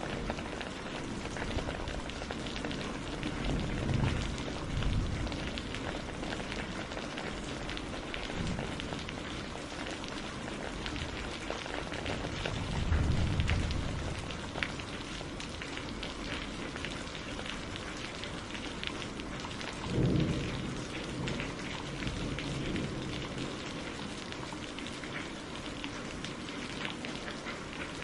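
Steady rain with a dense patter of drops. Three short low rumbles swell up, about 4, 13 and 20 seconds in.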